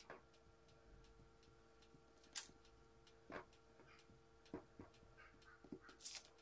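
Faint, scattered light clicks and ticks, about seven spread irregularly over a few seconds, over a faint steady hum.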